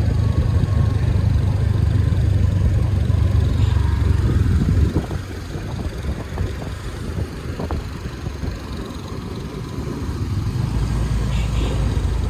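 Motor scooter ride: wind rumbling on the microphone over the scooter's engine. The rumble is heavy at first, eases about five seconds in, and builds again near the end.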